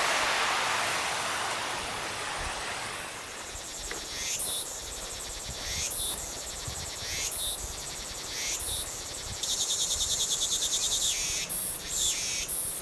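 Wind noise fading over the first few seconds, then high-pitched animal chirps repeating about every second and a half, with a fast pulsing trill in the middle.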